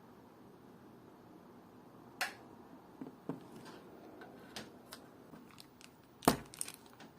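Sharp small clicks and light taps of watchmaker's tools and parts on the bench during work on a watch movement. They are spaced irregularly and start after about two seconds of quiet; the loudest comes about six seconds in, followed by a quick run of fainter clicks.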